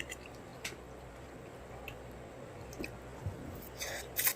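Mouth sounds of eating spicy instant pancit canton noodles: wet chewing and smacking, with a few sharp clicks spread through and a louder cluster of noisy mouth sounds near the end.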